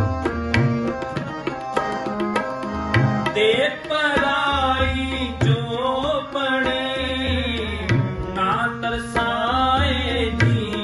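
Shabad kirtan on harmonium and tabla: the harmonium holds steady chords while the tabla plays a running rhythm with deep bass-drum booms. A man sings over them from about three and a half seconds in.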